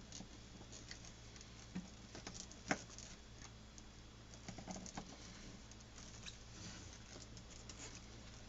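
A blade being drawn through thick, glued layers of leather, making faint, irregular clicks and scrapes with one sharper click about a third of the way in. The blade is dull and the leather resists the cut.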